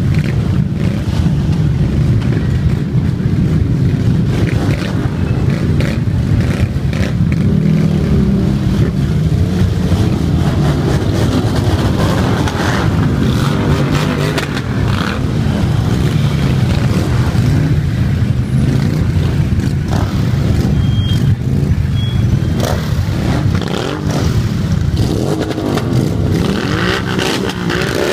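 Dense stream of motorcycles, mostly cruisers, rumbling past at low speed in a steady mass of engine noise. Individual engines rev up and down now and then, most clearly around the middle and near the end.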